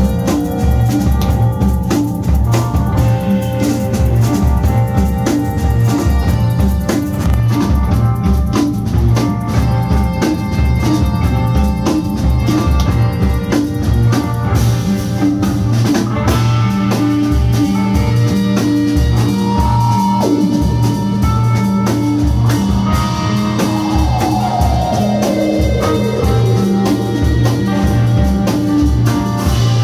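Live band playing instrumental music: drum kit keeping a steady beat under electric guitar, bass, keyboards and saxophone. About three-quarters of the way through there is a long falling pitch glide.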